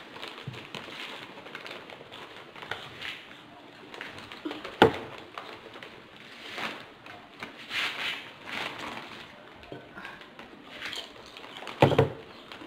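People drinking cola from glasses, with scattered short gulping, sipping and breathing noises. There is a sharp knock about five seconds in and a louder knock near the end.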